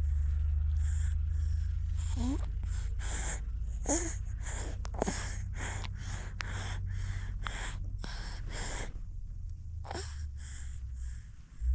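Infant feeding from a milk bottle: quick rhythmic sucks and gulps, about two or three a second, with breathy gasps and a few short squeaks, over a low rumble. The sucking stops near the end.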